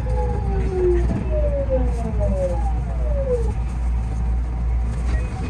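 JR West 207 series electric train's traction motors whining in several tones that fall together in pitch as the train brakes along the station platform, over a steady low rumble. The whine dies away about three and a half seconds in, leaving only the rumble.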